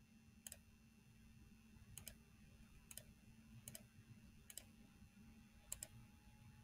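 Faint computer mouse clicks, roughly one a second with a quick double click near the end, over near-silent room tone.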